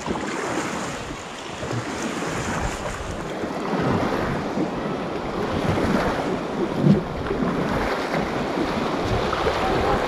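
River water rushing and splashing around an inflatable raft heading into a rapid, growing louder about four seconds in, with wind buffeting the camera microphone.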